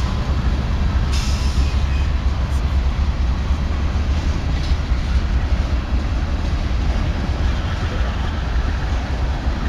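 Freight train of ethanol tank cars rolling past at close range: a steady low rumble of steel wheels on the rails.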